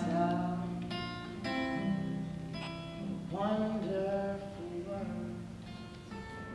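Acoustic guitar music, fading out near the end.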